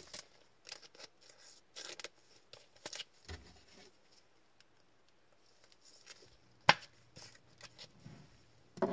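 Trading cards and plastic card holders being handled: scattered soft rustles and clicks, with one sharp click about two-thirds of the way through and another just before the end.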